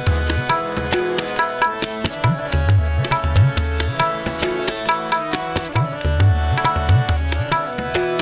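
Instrumental interlude of tabla and harmonium: the tabla keeps a steady rhythmic cycle of sharp strokes, with deep bass strokes from the larger drum coming back in a repeating pattern, while the harmonium plays a stepping melody of held notes.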